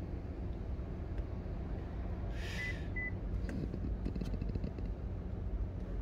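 Steady low hum inside a car with the vehicle switched on. About two and a half seconds in come a brief hiss and two short high beeps close together.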